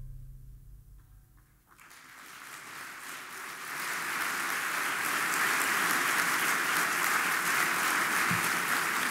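The tail of soft music fades out, and after a brief near silence an audience's applause starts about two seconds in, builds, and holds steady as dense clapping.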